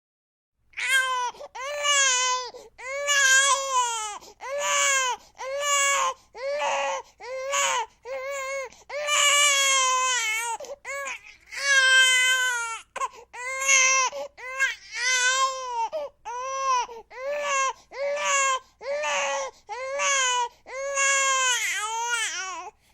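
Cartoon baby character crying: a long run of short wails, about one a second, each rising and falling in pitch, with short breaks between them.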